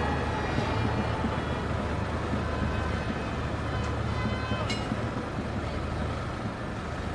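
Formula One car engine noise running steadily, with a few sharp ticks about four to five seconds in.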